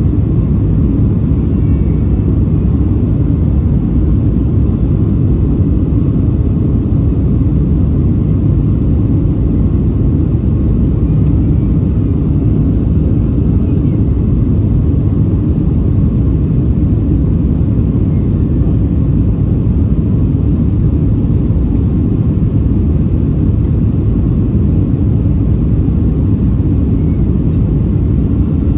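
Steady, even cabin rumble of a Boeing 737 in flight, the engines and airflow heard from a window seat over the wing, with the flaps extended on the descent.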